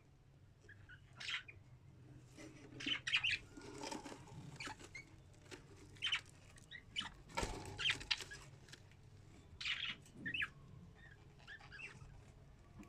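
Budgerigars chirping in many short, irregular calls, with a flutter of wings about halfway through.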